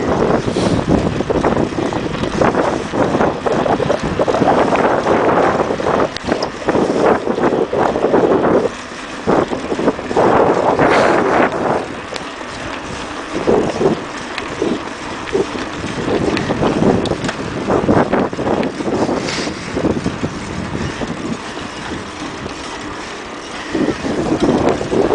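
Wind buffeting the microphone of a camera riding on a moving bicycle, a rough gusty rushing. It eases after about nine seconds and picks up again near the end.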